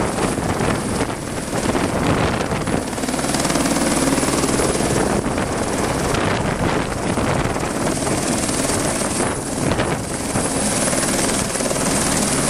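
Helicopter hovering low overhead on a long line under a slung concrete load, its rotor and engine running steadily and loud.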